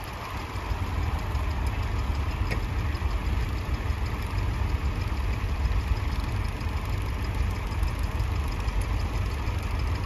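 Vintage tractors ploughing at a distance, their engines a steady low rumble.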